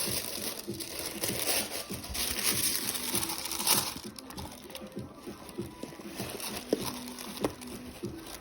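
Packaging being handled during an unboxing: paper and wrapping crinkling and rustling, loudest for the first four seconds, then softer handling noises.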